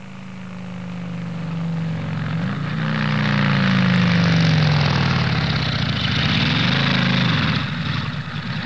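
An engine running, growing steadily louder over the first few seconds and then holding, its pitch rising and falling a few times.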